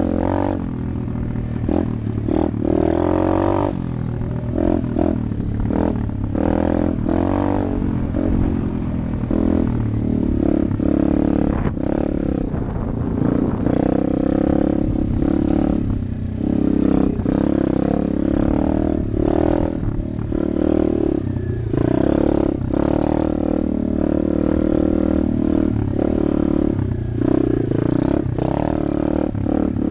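RFZ pit bike's small single-cylinder engine being ridden hard, its revs rising and falling over and over with the throttle, with the bike's chassis clattering over bumps.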